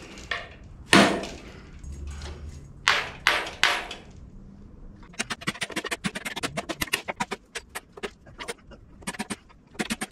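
Metal tool strikes on a rusted Chevy 283 V8 block while a seized piston and rod are worked loose: one sharp blow about a second in and three quick blows around three seconds. From about five seconds on comes a long run of rapid, light metallic clicking.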